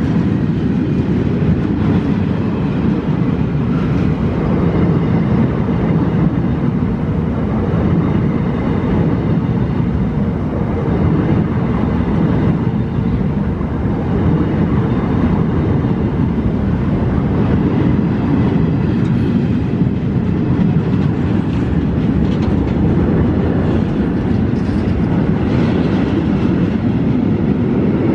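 Container wagons and a towed, unpowered Class 802 multiple unit rolling past at close range. Their wheels on the rails make a loud, steady rumble.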